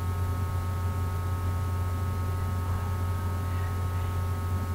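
Steady electrical hum with a faint buzzing overtone, low and unchanging throughout.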